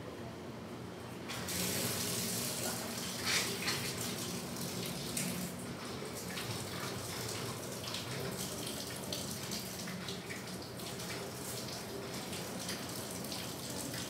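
Water running from a tap into a sink, turned on about a second in, with a few brief louder splashes.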